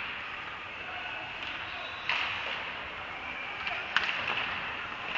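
Ice hockey play in an arena: skate blades scraping on the ice as a steady hiss, with sharp knocks of stick and puck about two seconds in and again about four seconds in.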